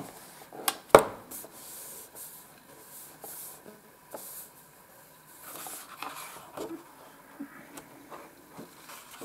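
Hands handling an open colouring book: a sharp tap about a second in, then soft rustling of fingers sliding over the paper pages, with small ticks.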